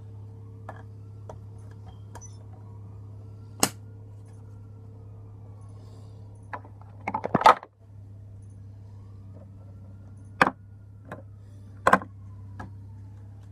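A few sharp clicks and taps scattered over a steady low hum, loudest in a quick cluster about halfway through.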